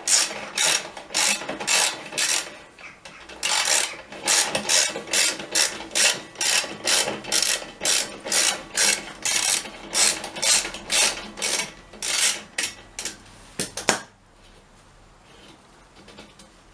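Socket ratchet wrench clicking in quick repeated back-and-forth strokes, about three a second, with a short pause about three seconds in, stopping about fourteen seconds in: a bolt on a motorbike exhaust being undone.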